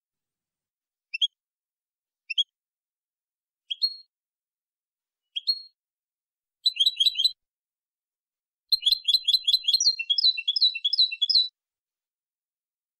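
European goldfinch singing: four short, separate high notes, then a brief rapid phrase, then a longer run of quick twittering notes that stops about two-thirds of a second before the end.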